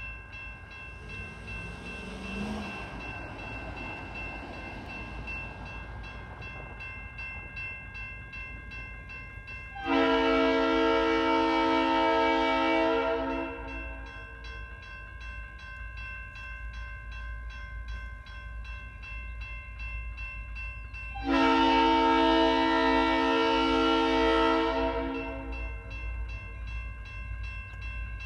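Locomotive horn sounding two long blasts of a several-note chord, the first about ten seconds in and the second about twenty-one seconds in, each lasting three to four seconds, from an approaching train. Under them a grade-crossing bell rings steadily throughout.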